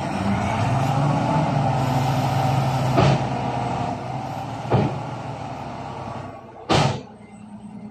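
Isuzu Giga dump truck's 10PE1 V10 diesel held at raised revs to drive the tipper hoist as the bed lifts, easing off about four seconds in. Two sharp knocks, near three and five seconds, and a short loud hiss of air near the end.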